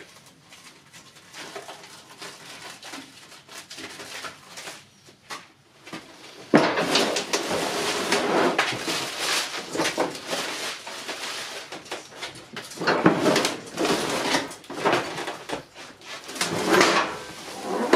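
Scraping, rustling and knocks of a motorcycle lift table and its packaging being handled and unpacked. A few faint clicks at first, then loud, continuous handling noise from about six and a half seconds in.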